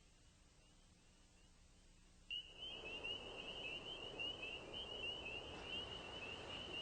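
Faint night-time outdoor ambience: a steady, high, wavering insect trill over a soft rushing background, suddenly louder about two seconds in.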